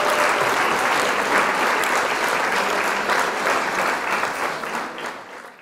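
Crowd applause, dense clapping that fades out near the end and then cuts off to silence.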